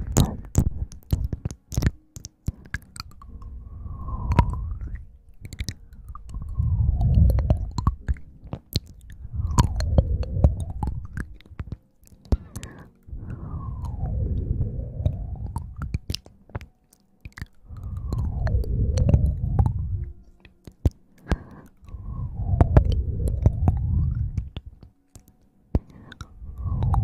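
A fluffy white brush is swept slowly and repeatedly over the microphone. Each stroke gives a muffled low rustle that swells and fades, with a swooshing rise and fall, about every three to four seconds. Small crackles and clicks are scattered throughout.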